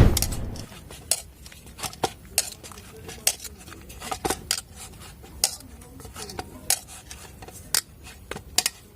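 Maida dough being kneaded by hand, giving irregular light clicks and knocks, about one or two a second. A louder dull thud fades out right at the start.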